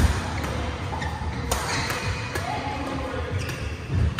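Badminton rackets striking a shuttlecock during a doubles rally: sharp smacks, the loudest right at the start and about a second and a half in, with fainter hits from nearby courts, over the steady hum of a large hall.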